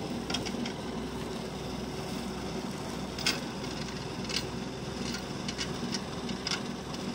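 An engine idling steadily, with a few short, sharp clicks and knocks scattered through.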